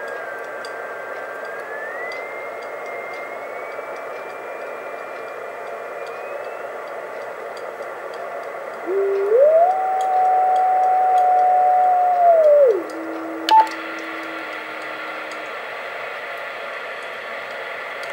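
Yaesu all-mode transceiver's receiver hiss on the 2 m band in CW mode while the dial is tuned. A faint whistle glides in pitch at first. About nine seconds in, a louder whistle steps up in pitch, holds for about three seconds and falls away. A click comes soon after, and the hiss turns brighter. No satellite CW beacon is heard.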